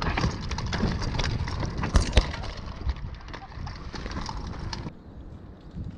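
Mountain bike riding fast down a dry dirt trail: tyres rumbling over loose dirt with a constant rattle and clatter from the bike, and two sharp knocks about two seconds in. About five seconds in the sound drops abruptly to a quieter, duller rumble.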